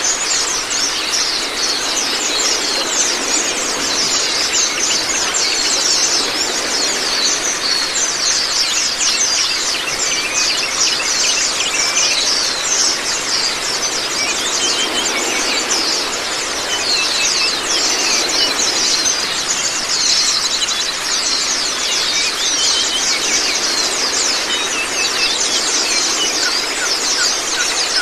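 White-eyes (Zosterops) singing a fast, unbroken high-pitched chattering song, over a steady rush of running water.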